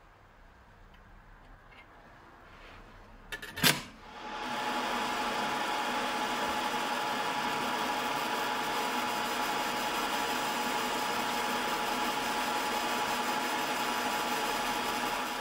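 EM Smart Basic 1 fibre laser engraving lettering into a metal block: after a sharp click about three and a half seconds in, a steady hiss with faint steady tones starts and runs on.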